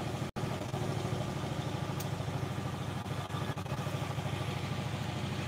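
A small engine idling steadily, an even low putter that cuts out for an instant about a third of a second in.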